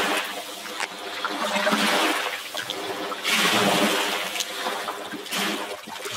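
Small lake waves washing and splashing against the side of a wooden fishing canoe, coming in several surges.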